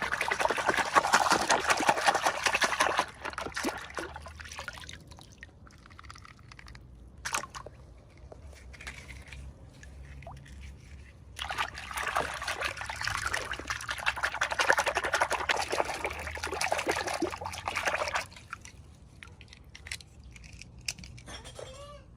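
Liquid pouring or trickling in two stretches: a short one at the start and a longer one from about the middle until near the end, with faint scattered small sounds between.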